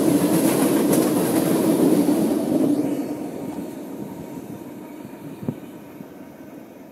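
Freight train of oil tank cars rolling past close by, a dense rumble of wheels on rail, which fades away from about three seconds in as the train recedes. A single short knock about five and a half seconds in.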